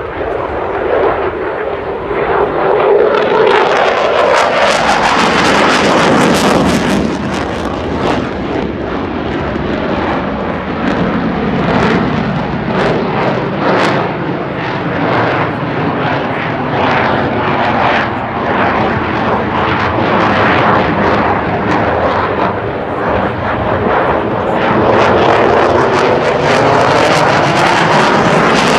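Belgian F-16 fighter jet's single turbofan engine at high power through a display routine, the loud jet noise sweeping down and back up in pitch as the jet passes and turns, with a crackling edge.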